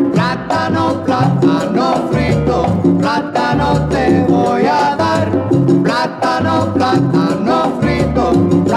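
Latin dance orchestra playing a mambo, an instrumental passage: a melody line with swooping notes over a pulsing bass and steady percussion.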